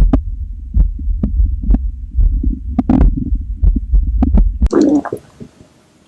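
A hungry stomach growling, recorded up close: a low continuous rumble with irregular gurgling pops. It cuts off abruptly about three-quarters of the way through, leaving faint hiss.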